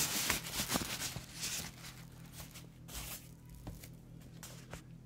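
Plastic bag rustling and crinkling as hands pull it open, with scattered clicks of packaging being handled. It is busiest in the first two seconds, then thins to occasional faint clicks.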